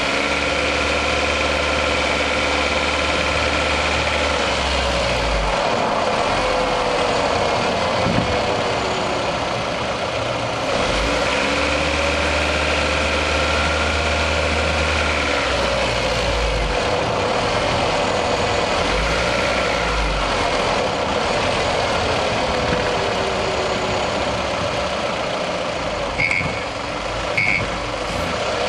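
Toyota 1AZ-FE 2.0-litre four-cylinder engine running under driving load, recorded close up in the engine bay, its pitch rising and falling slowly with the revs. The owner reports a characteristic knock from this warm engine under load. Two short high beeps sound close together near the end.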